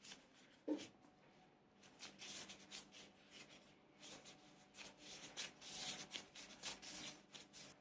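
Near silence with faint soft rubbing and light ticks: hands shaping nigiri sushi, pressing a small rice ball and a slice of white fish.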